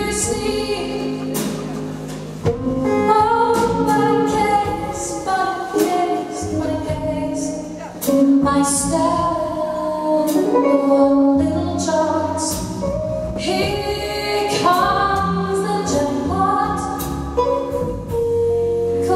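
A woman singing a song live into a microphone, backed by a small band of electric archtop guitar, upright double bass and drums.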